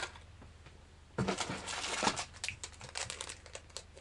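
Plastic lure packages crinkling and rustling as they are handled, starting about a second in as a run of short crackles.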